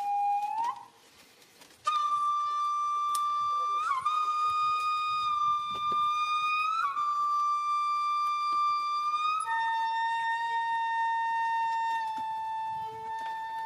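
Background music: a flute-like wind instrument playing slow, long held notes. After a short note and a brief pause about a second in, a long note is held for several seconds with small bends, then the melody steps down to a lower held note.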